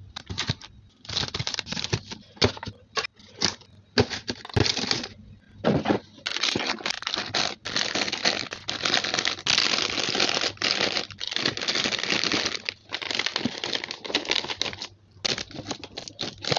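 Plastic snack wrappers and packets crinkling as they are handled and set into clear plastic drawer bins, in irregular bursts of rustling with short pauses and a few light knocks.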